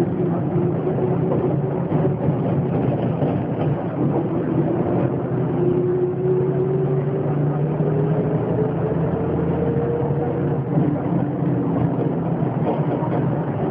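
Volkswagen 17.230 EOD bus engine pulling under load, its pitch climbing steadily for several seconds as the bus accelerates in gear, then levelling off.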